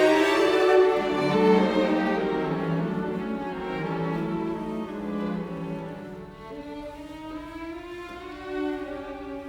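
Instrumental music of slow, held string notes, growing quieter over the first six seconds.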